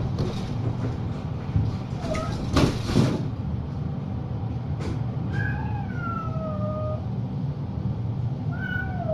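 Cat meowing: a short call about two seconds in, a long falling meow from about five seconds, and another near the end. These sound over a steady low hum, with a brief rustle about two and a half seconds in.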